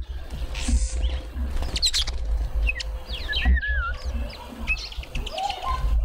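Several garden birds calling together: short chirps and sweeping whistles, with a wavering whistle about halfway through, over a steady low rumble.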